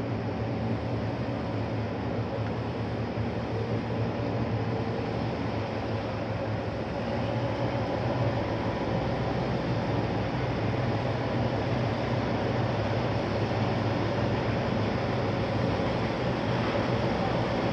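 Heavy diesel engine running steadily with a low hum, getting a little louder about seven seconds in.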